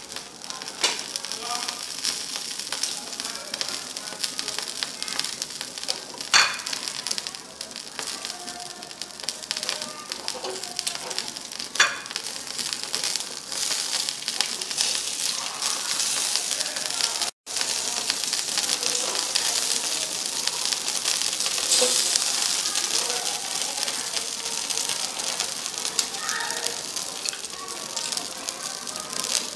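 Pork ribs sizzling on an electric tabletop grill, a steady spitting hiss. A few sharp clicks come from chopsticks on the wire rack.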